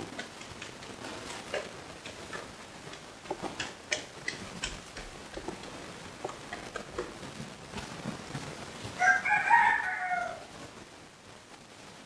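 A loud bird call about nine seconds in, lasting just over a second with a wavering pitch, after a run of scattered soft clicks.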